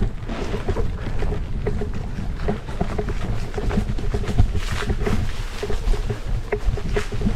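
Gravel bike rolling over a rough, stony track: tyres crunching and the bike rattling in a dense run of small knocks, with a steady low rumble of wind on the action-camera microphone.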